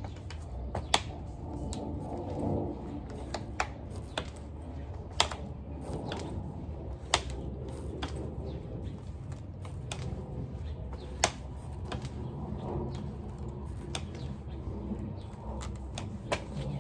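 Irregular sharp clicks and taps, a few of them much louder, over a steady low rumble.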